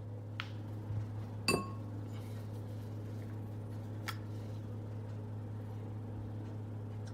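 A few light clinks of glassware being handled during slime mixing; the loudest, about a second and a half in, rings briefly. A steady low hum lies under them.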